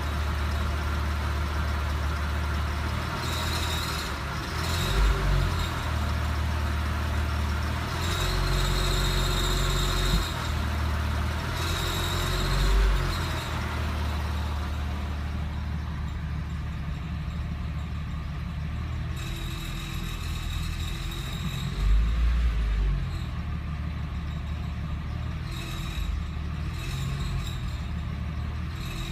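Porsche 997 Carrera 4S's 3.8-litre flat-six running with a steady low hum. A high-pitched whining, squeaky noise comes and goes several times over it. The cause of the noise is not known.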